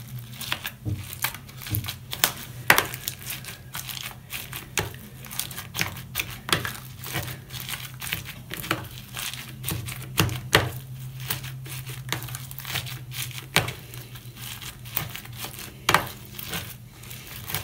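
Floam being kneaded by hand in a plastic tub: styrofoam beads in sticky glue-and-borax slime crackling and crinkling in dense, irregular clicks. A steady low hum runs underneath.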